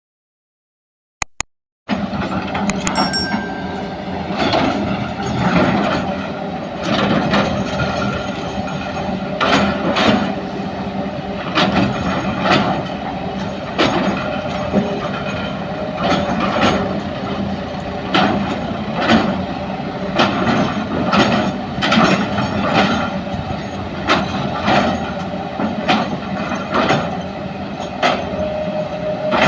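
Hitachi excavator at work loading soil: its diesel engine runs steadily under a steady hum, with frequent irregular knocks and clanks of the machinery. The sound starts about two seconds in, after a moment of silence.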